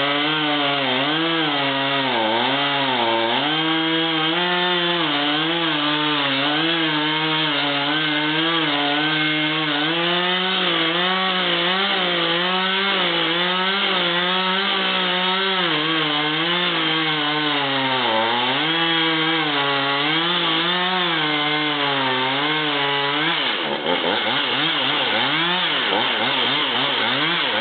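Chainsaw cutting through a pine tree, its engine pitch wavering up and down under load. About twenty-three seconds in it comes off the cut and its speed swings quickly up and down.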